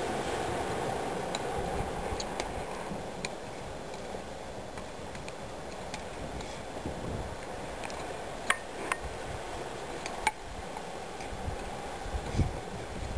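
Irregular sharp clicks and clacks of a nunchaku being swung and caught, its sticks and chain knocking. The loudest come a little past the middle, over a steady hiss.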